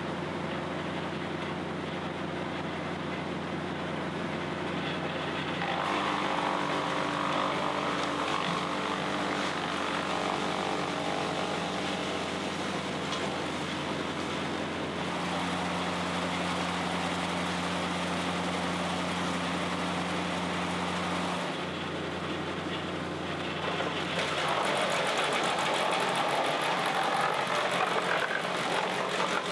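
Bandit Model 90XL brush chipper running on its diesel engine, a steady machine drone whose note changes a few times. Near the end it turns louder and rougher for several seconds.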